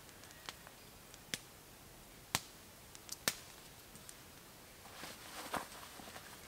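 A headlamp being handled: several sharp, separate clicks, then a short rustle about five seconds in as it is pulled onto the head.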